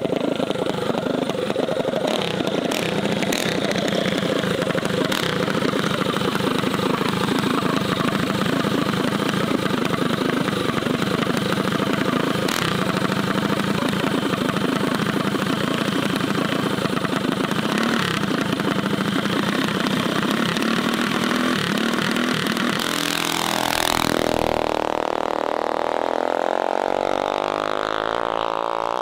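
Mini bike engine running steadily, with a few sharp clicks in the first seconds. About 23 seconds in the sound changes and the engine's pitch wavers up and down.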